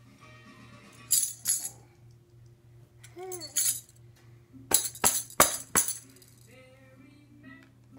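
Small wooden toy tambourine shaken and struck by hand, its metal jingles rattling in short bursts: two about a second in, another pair around the middle, then four quick hits a little later.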